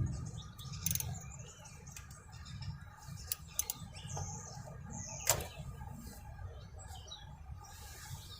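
A few scattered faint clicks and knocks of a universal socket being fitted to and worked on motorcycle crankcase cover bolts, with the loudest knock a little past five seconds in. Faint chirps sound now and then over a low steady hum.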